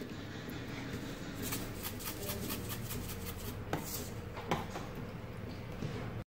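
Salt being poured from a canister into a bowl of batter: light rattling ticks, thickest in the middle, with a few sharper handling clicks, over a low steady hum. The sound cuts off suddenly just before the end.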